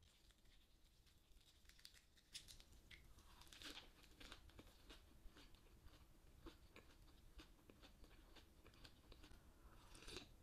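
Faint, close chewing of a lettuce wrap filled with boiled beef tongue: soft crunches of fresh lettuce and small wet mouth clicks, coming thick and fast from about two seconds in.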